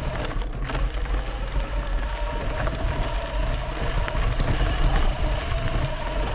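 E-bike riding along a trail: a steady whine from the electric motor over a wind rumble on the microphone, with scattered clicks and rattles from the bike over the trail surface.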